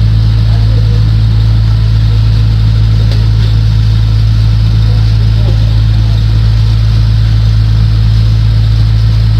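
Loud, steady low hum that does not change.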